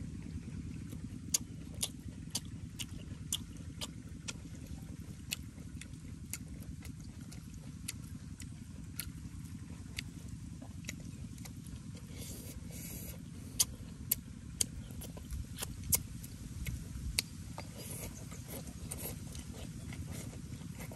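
Close-up eating sounds: chewing and lip smacks heard as sharp clicks scattered all through, with two brief slurps of soup, over a steady low rumble.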